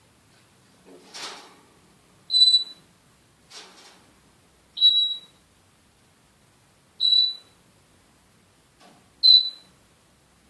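African grey parrot whistling: four short, high whistles on one steady pitch, about every two seconds, with a few softer breathy sounds between them.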